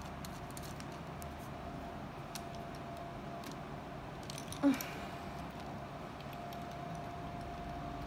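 Small clicks and rattles of Lego Technic plastic parts and tow-hook strings being handled, with a louder knock about halfway through. A faint steady hum runs underneath.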